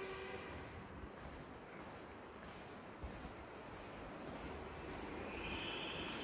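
A cricket chirping: a high note that pulses a little under twice a second over a steady hiss of outdoor noise. A short horn-like tone dies away just after the start.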